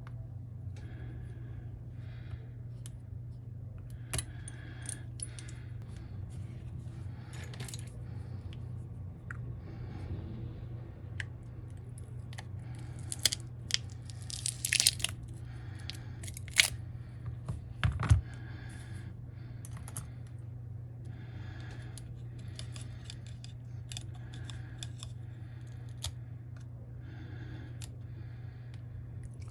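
Small tools clicking, tapping and scraping on an iPhone 12 Pro being pried open after heating, with short tearing sounds of adhesive, over a steady low hum. The clicks come in scattered runs, busiest around the middle.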